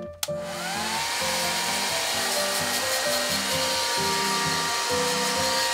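Handheld hair dryer switched on with a click, its motor whine rising as it spins up and then holding steady under a constant rush of blown air.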